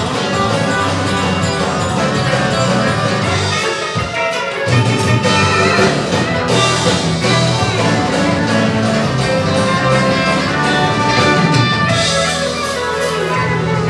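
Country band playing an instrumental break, with electric guitar and mandolin picking lead lines over bass and drums.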